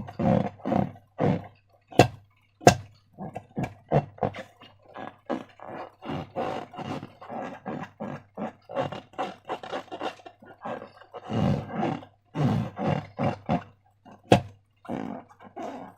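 Slime being squeezed and worked by hand, giving quick wet squelches a few times a second, with three sharp snapping clicks among them.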